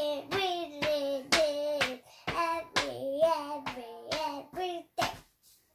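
A young child singing a wordless sing-song tune in drawn-out notes while his hand taps on a picture book about three times a second. The singing and tapping stop about five seconds in.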